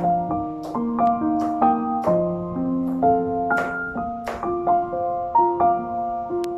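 Background piano music: a gentle melody of single notes, each starting sharply and ringing on, over held lower notes.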